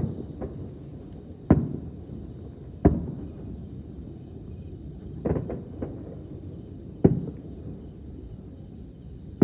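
Distant aerial firework shells bursting: a string of dull booms, each trailing off in a low rumble. The loudest come about a second and a half in, about three seconds in and about seven seconds in, with a quick cluster of three smaller booms around five seconds.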